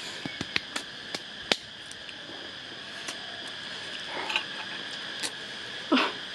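Mouth sounds from people eating very spicy noodles: sharp clicks and smacks in the first second and a half, then short voiced gasps from the chilli heat about four and six seconds in. A steady high insect drone runs underneath.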